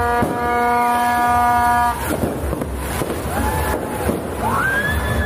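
A horn blows one long, steady toot for about two seconds. Later come two rising-and-falling whoops over the constant noise of a crowd in the street.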